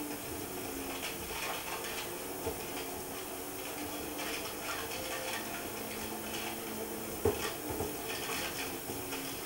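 Volkswagen rally car's engine heard from inside the cabin, its note shifting up and down with the throttle under a constant rattling clatter. A sharp knock about seven seconds in.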